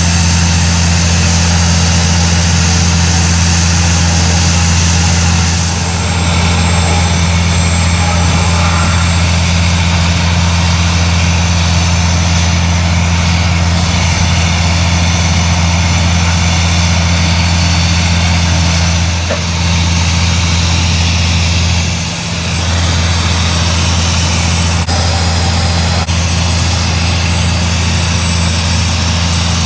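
Water-well drilling rig and its air compressor running, a loud steady low engine drone with a hiss over it. The level dips briefly about six, nineteen and twenty-two seconds in.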